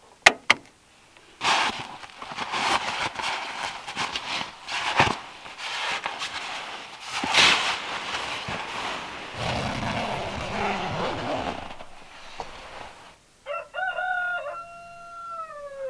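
Nylon sleeping bag rustling as someone shifts about in it, after two sharp clicks at the start. Near the end a rooster crows: a few short notes, then a longer note that falls away.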